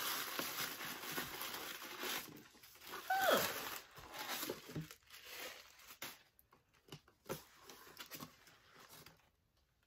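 Paper and cardboard packing stuffing rustling and crinkling as a box is unpacked by hand, thinning out to a few scattered rustles and clicks. A brief falling vocal sound about three seconds in.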